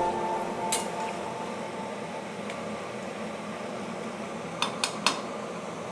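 Background music fading out within the first second, then a steady hiss with sharp clinks of a utensil against a cooking pot: one about a second in and three in quick succession near the end.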